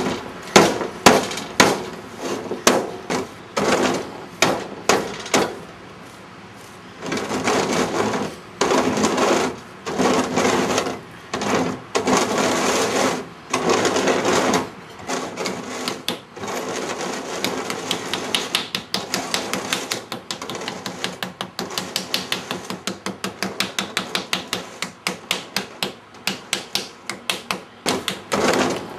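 Hard knocks with short ringing tails, about two a second. Six seconds or so in they give way to a run of longer, harsher scrapes of under a second each. From about halfway they become fast, even taps, three or four a second.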